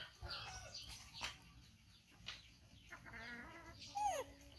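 Faint bird calls, with one louder call sliding down in pitch about four seconds in.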